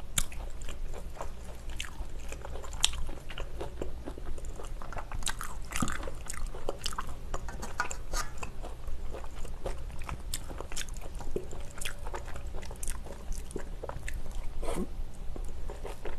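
Close-miked chewing and wet mouth sounds of a person eating spicy stir-fried pork with rice, with scattered sharp clicks of a metal spoon against the pan and bowl.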